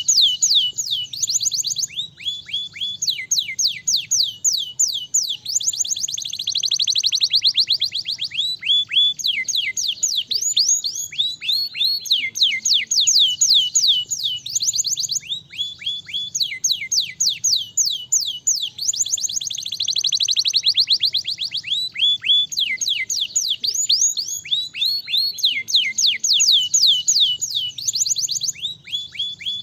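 Domestic canary singing a long, unbroken song of rapid, high, falling whistled notes. Twice, about seven and twenty seconds in, the notes run together into a denser, faster roll.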